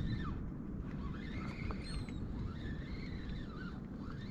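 Hobie kayak's pedal drive squeaking as it is pedalled, a rising-and-falling squeak about once a second, over a steady low rumble of wind on the microphone.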